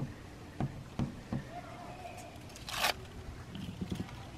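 Butyl putty tape being handled and pressed onto a van's ribbed metal roof: a few light taps, then a short ripping sound about three seconds in as tape is pulled from the roll.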